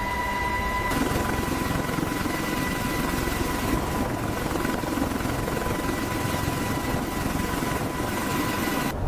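Helicopter running: steady rotor and turbine noise with a thin high whine, the sound shifting abruptly about a second in and again near the end.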